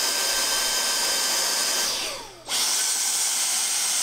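Vacuum cleaner running steadily as its nozzle sucks dust out of a television's line output transformer cage. About two seconds in, the sound drops away with a falling whine and comes back abruptly half a second later.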